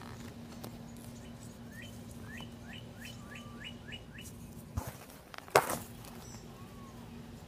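A bird singing a quick series of about eight short chirps, each sweeping upward, roughly three a second. A sharp knock about five and a half seconds in, with a faint steady hum throughout.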